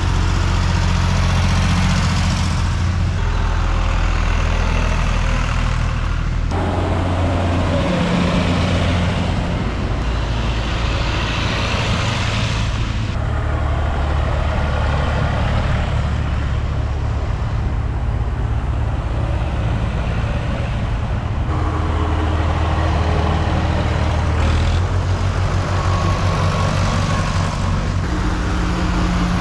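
Vintage farm tractors driving past one after another, their engines running with a steady low chug. The engine note changes several times as one tractor passes and the next one comes up.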